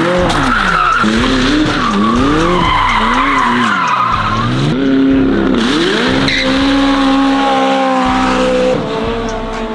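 A car doing donuts: the engine's revs swing up and down about once a second while the tyres squeal, then from about six seconds in the engine holds a steady note.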